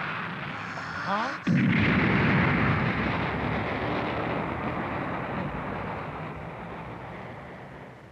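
Sound effect of a missile launching out of the sea: a noisy rumble, a short rising sweep about a second in, then a sudden loud blast of rocket noise that slowly fades as it climbs away.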